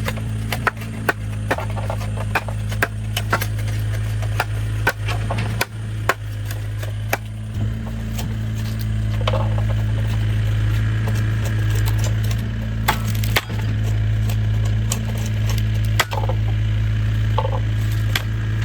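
Irregular sharp wooden knocks, about one or two a second at first and sparser later, over a steady low engine-like hum.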